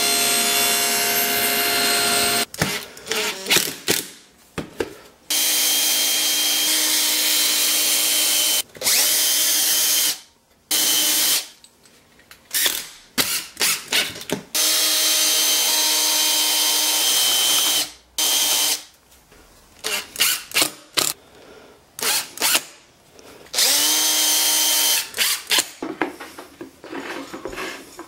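Electric power saw making bevel cuts in wood. It runs in steady spells of a few seconds, with bursts of knocks and clicks from handling the work in the pauses between.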